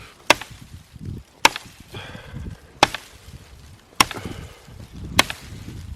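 Axe chopping wood: five sharp strikes, about one every second and a quarter.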